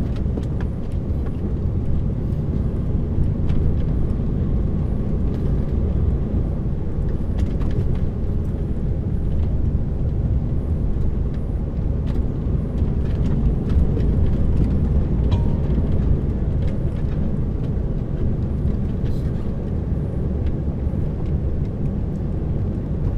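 Steady low rumble of a lorry's diesel engine and tyre noise heard from inside the cab while driving.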